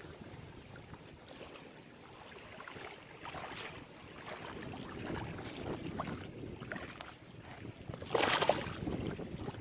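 Wind buffeting the microphone over choppy lake water, with small scattered knocks and clicks. There is a short, louder burst of noise about eight seconds in.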